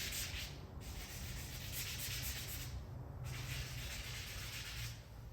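Three long rubbing strokes across the glaze-putty repair on a car door, a hissing scrape with short breaks about a second in and about three seconds in.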